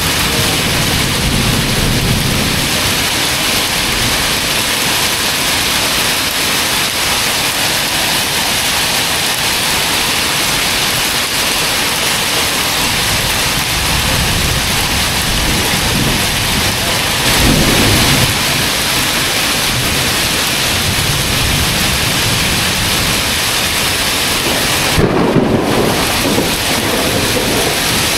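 Heavy thunderstorm rain pouring steadily onto pavement and parked vehicles. Low rumbles of thunder swell up near the start, about two-thirds of the way through and again near the end.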